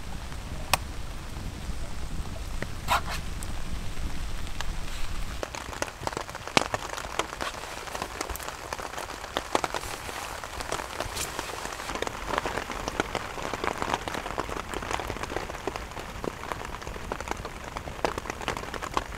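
Steady rain with many individual drops pattering and ticking on a tarp overhead, growing denser after the first few seconds.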